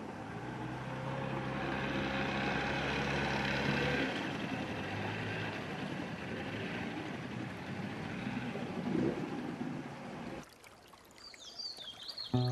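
Outboard motor of a small river boat running at steady pitch, loudest over the first few seconds and easing at about four seconds, with water noise around it. About ten seconds in it cuts off to a quieter stream with a few bird chirps near the end.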